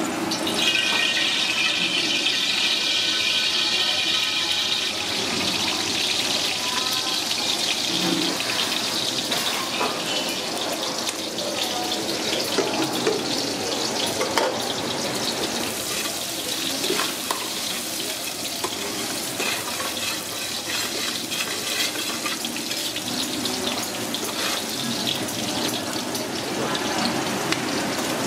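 Tap water running steadily into a sink, with scattered clicks and knocks. Over the first few seconds a ringing tone sounds along with the water.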